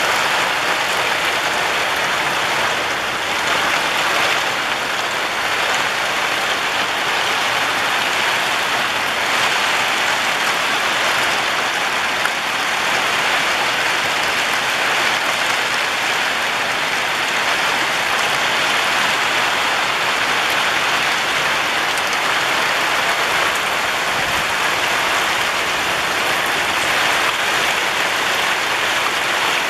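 Heavy rain falling steadily on clay tile roofs, an even hiss that never lets up.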